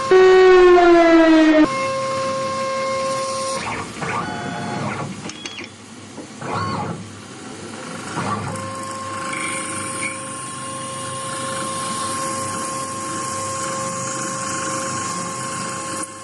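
Stepper motors whining at their step rate. It opens with a loud tone that falls in pitch for under two seconds as a motor slows, then a steady two-note whine, some short pitch glides in the middle, and the steady whine resumes about eight seconds in.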